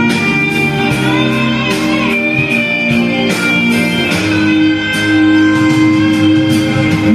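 Karaoke backing track playing an instrumental passage led by guitar, with a steady beat and no vocal.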